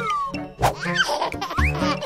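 Playful background music with a steady bass pulse and short sliding tones, one falling in pitch at the start and one rising near the end.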